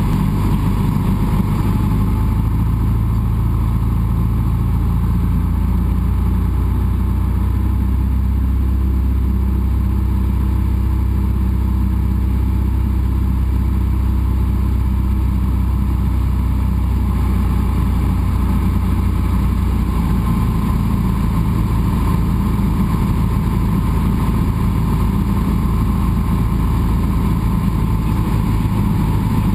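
Cessna 172's piston engine and propeller droning steadily in cruise, heard inside the cabin, the tone shifting slightly a few seconds in and again past the middle.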